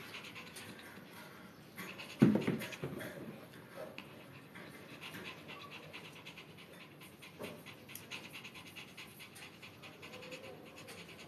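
Maltese dog panting quickly, with a sudden louder sound about two seconds in.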